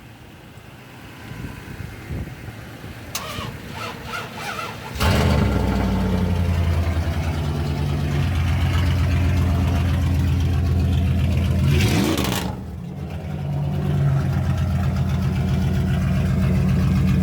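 Dodge Ram 1500's 5.9-litre V8 with a straight-piped exhaust, muffler removed, being cranked and catching about five seconds in, a cold start after sitting on a jumped battery. It then runs loud through the open pipe, with a quick rev near twelve seconds before settling back to idle.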